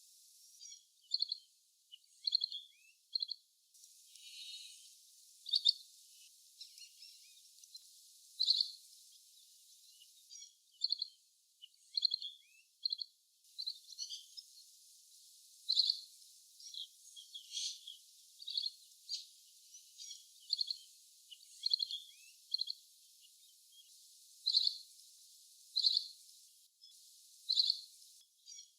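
Asian green bee-eater (little green bee-eater) calling: short, high, trilled notes, repeated every second or two, sometimes in quick pairs.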